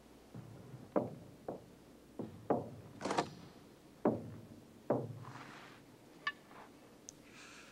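A series of about eight irregular knocks or thuds, each with a short echoing tail, followed by a couple of light clicks near the end.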